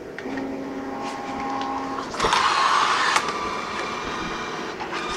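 Canon imagePROGRAF iPF770 large-format inkjet printer running as the print feeds out. A steady motor whine with a few pitched tones turns into a louder, rougher whirr about two seconds in, which lasts about a second and ends in a click.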